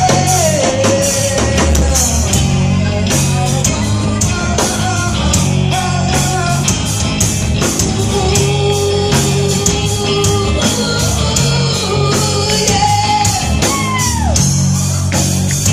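Rock music with a steady drumbeat, guitar and singing, held notes sliding steeply down near the end.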